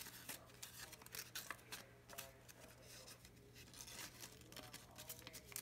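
Faint, irregular rustling and crinkling of lined notebook paper as hands tuck and crease the flaps of a folded paper frisbee, over a low steady hum.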